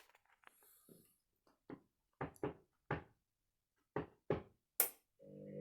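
Candy washing machine drum during its load-sensing stage: a string of about nine short knocks and clunks, irregularly spaced. About five seconds in, the drum motor starts up with a steady hum.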